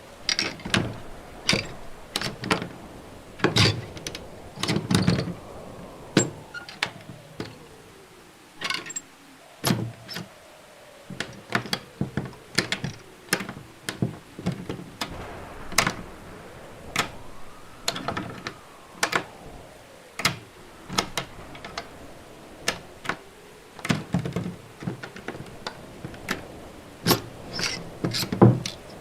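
A quick series of recorded door sounds, dozens of short sharp clicks, latch snaps and thuds one after another, some close together and some spaced out. Underneath runs a faint background sound with slow rising and falling tones, added as a watermark.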